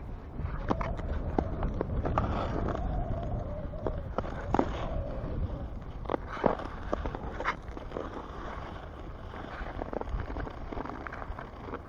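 Ice skate blades scraping and crunching in irregular strokes over rough ice with a loose top layer, while wind rumbles steadily on the microphone.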